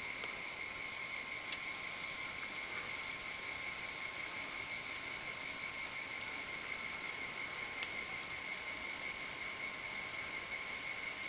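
Servo motor driving a milling machine's quill through a toothed timing belt and ball screw, with a steady high-pitched whine. Two faint ticks come about 1.5 s and 8 s in.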